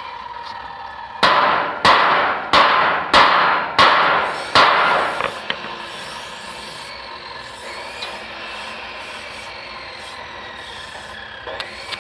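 A quick run of six sharp scraping or striking strokes from a hand tool, about three every two seconds, each fading quickly, then a steady lower background noise.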